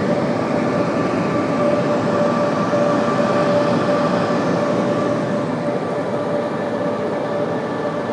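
Car wash dryer blowers running, a steady rush of air with a steady whine over it, heard from inside the car's cabin during the drying stage of the wash.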